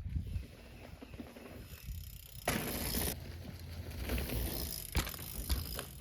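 Mountain bike riding on a dirt jump trail: a steady low rumble of the bike in motion, a half-second hiss about two and a half seconds in, and two sharp knocks near the end.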